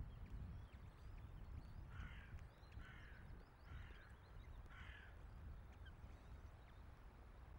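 Ospreys calling at the nest: four short, harsh calls about a second apart, over a faint low rumble of wind on the microphone.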